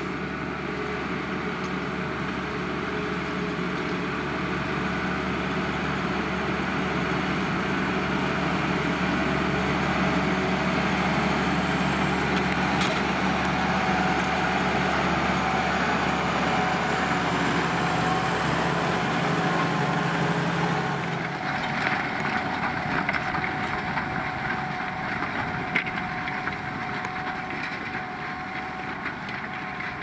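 Valtra tractor's engine working steadily under load as it pulls a Pöttinger four-furrow plough, growing louder as it approaches. About two-thirds of the way through the sound changes abruptly to a closer, noisier scraping of soil being turned by the plough, with occasional sharp clicks of stones against the plough bodies in the rocky ground.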